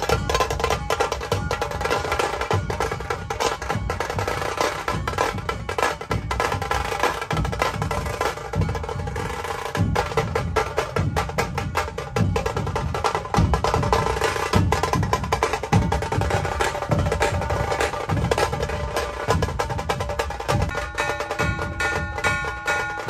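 Music driven by fast, dense drumming and percussion over held melody notes.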